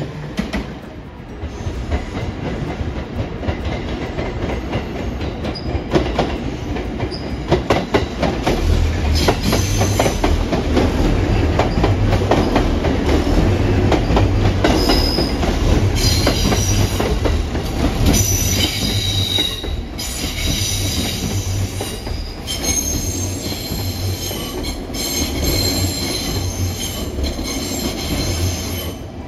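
A train running on the rails: wheels clicking over the rail joints over a steady rumble, with high-pitched wheel squeal coming and going from about nine seconds in.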